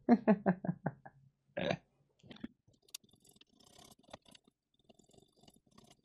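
A man laughing briefly: about seven quick 'ha' pulses falling in pitch within the first second, then a short breath, followed by faint scattered clicks and scratches.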